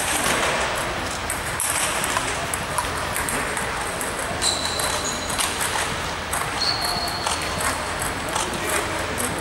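Table tennis balls clicking irregularly off bats and tables, over a steady low hum. Two short, high squeaks come about halfway through.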